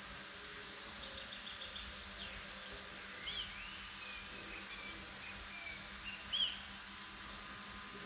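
Birds calling over a steady background hiss: a short rapid trill about a second in, then a few scattered high chirps, the loudest a sharp arching call near the end.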